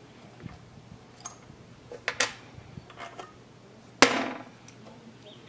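Small metal clicks and clinks as the fuel injector hold-down plate is worked off the cylinder head of a single-cylinder diesel engine. About four seconds in comes a sharp metallic clank with a short ring, the loudest sound, as loose metal parts are set down.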